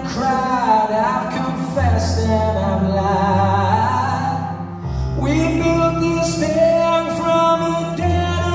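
A slow song sung live to grand piano, the voice gliding over low sustained piano chords that change every couple of seconds.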